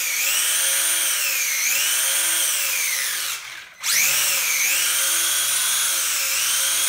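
1/18 WLtoys A979-B's 540-size brushed electric motor and metal drivetrain running at high throttle, a high whine that rises and dips as the throttle is worked. A little past three seconds in the throttle is let off and the whine falls away, then it is run straight back up.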